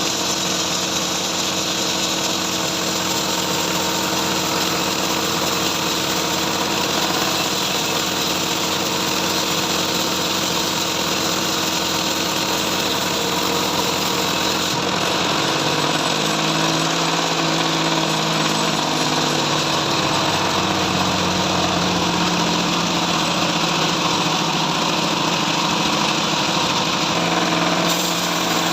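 Bandsaw mill running steadily while sawing a trembesi log, its drive hum wavering in pitch from about halfway through.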